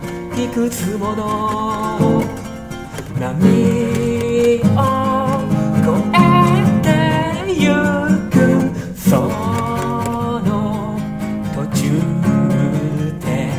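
A voice singing in Japanese, accompanied by a nylon-string (gut-string) classical guitar.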